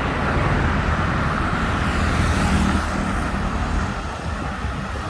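Steady road traffic noise from cars and other motor vehicles on a busy road, with a low rumble throughout.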